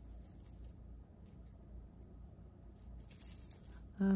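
Small metal jewelry pieces clinking and jingling faintly in scattered light taps as tangled earrings are worked apart by hand. Right at the end a person's hummed voice begins.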